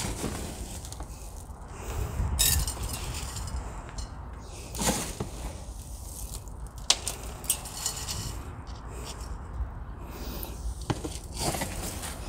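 Gritty bonsai soil mix poured into a terracotta pot around an elm's roots, in several noisy pours with sharp clicks of grit striking the pot.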